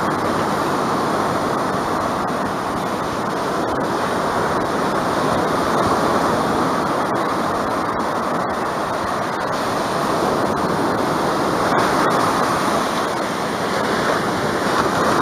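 Ocean surf breaking and washing up a sandy beach: a steady rush of waves that swells slightly and falls back.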